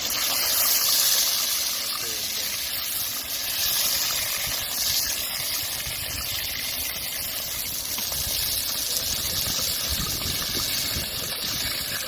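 Sea waves washing against a rocky shore: a steady rushing noise that swells about a second in and again about four seconds in.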